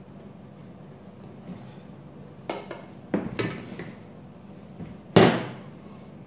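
Dishes and spoons being handled on a table: a few clinks and knocks about two and a half to three and a half seconds in, then a louder knock with a short ring about five seconds in.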